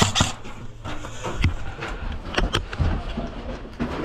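Irregular sharp clicks and knocks, about half a dozen spread over a few seconds with the loudest at the very start, over a low steady rumble: the handling, movement and shots of an airsoft game.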